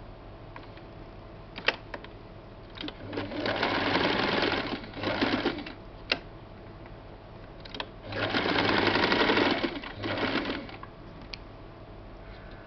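Domestic electric sewing machine stitching a seam in two runs of a couple of seconds each, starting about three and eight seconds in, with a few sharp handling clicks between them.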